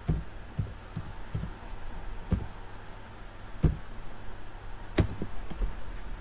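Computer keyboard keystrokes: a handful of scattered, irregular key taps while an address is typed, with one sharper tap about five seconds in, over a steady low hum.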